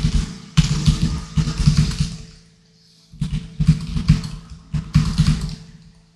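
Typing on a computer keyboard: quick runs of key clicks, with a short pause about two and a half seconds in.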